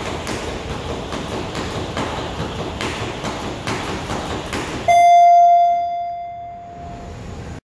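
A single speed rope slapping a wooden floor in a fast, steady rhythm with the jumper's quick footfalls. About five seconds in, a loud ringing beep cuts in and slowly fades: the timer signal ending the speed event.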